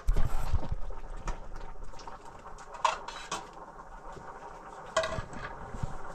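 Dishes and metal utensils clattering: irregular knocks and clinks, with two ringing clinks about three and five seconds in.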